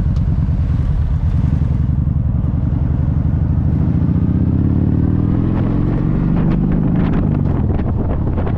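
Motorcycle engine running under way, its note climbing as the bike picks up speed, with wind buffeting the microphone more and more near the end.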